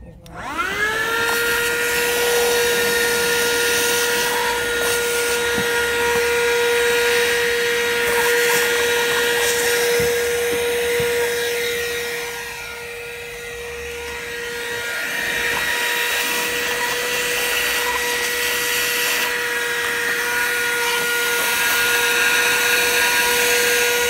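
Besteek 12-volt 120 W handheld car vacuum switching on, its motor whine rising within about a second to a steady high pitch, then running steadily while sucking debris out of a windshield cowl. The sound drops for a couple of seconds about halfway through.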